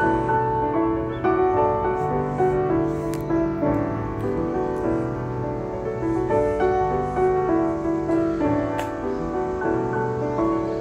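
Background piano music, a slow tune of held notes and chords.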